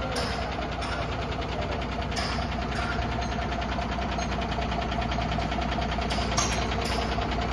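Ashok Leyland 14-wheeler truck's diesel engine idling steadily with an even clatter.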